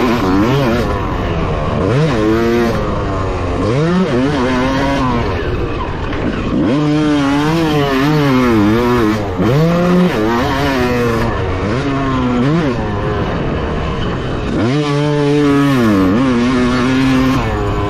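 Yamaha YZ250 single-cylinder two-stroke dirt bike with an FMF exhaust, its revs rising and falling over and over as the throttle is worked on and off, heard from a helmet-mounted camera.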